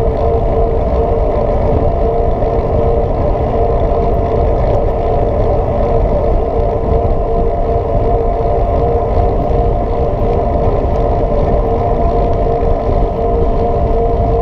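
Mountain bike rolling along an asphalt road at a steady speed: wind rushing over the bike-mounted camera, with a steady hum from the tyres on the tarmac.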